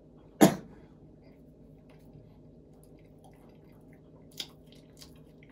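Quiet chewing and small eating noises close to the microphone, with one short, loud burst about half a second in and a couple of faint clicks near the end.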